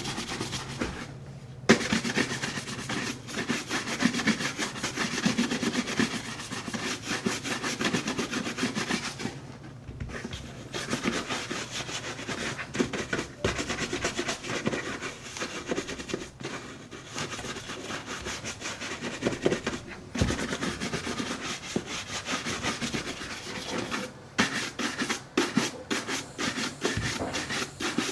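Horsehair brush swept quickly back and forth over a cream-coated Red Wing leather boot to raise a shine: a dense run of brisk bristle strokes, broken by a few short pauses. There is a single sharp knock about two seconds in.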